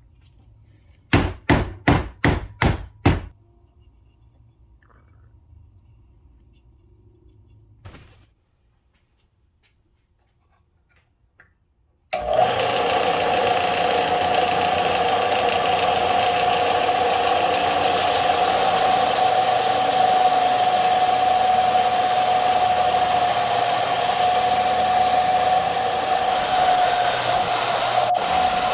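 Six quick knocks in a row, then a pause. About twelve seconds in, an electric power tool starts and runs steadily with a high hum, and its hiss grows louder about six seconds later.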